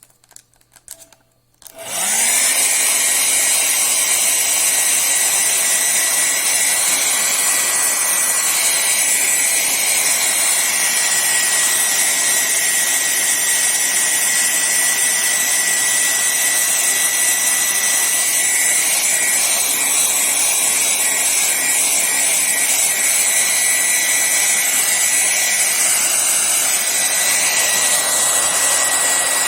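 Hand-held hair dryer switched on about two seconds in. It spins up quickly to a steady whine with a strong rush of air, drying the wet watercolour.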